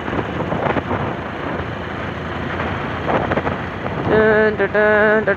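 Wind rushing over the microphone of a moving motorbike, mixed with road and engine noise. About four seconds in, a louder melody of held, repeated notes starts.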